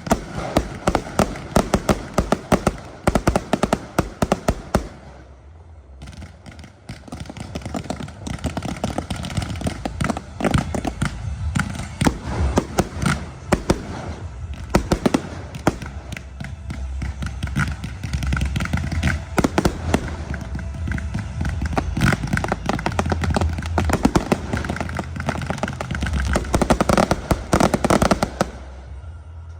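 Fireworks going off in rapid succession: dense sharp crackling bangs, a short lull about five seconds in, then a continuous barrage of crackles over a low rumble that stops abruptly near the end.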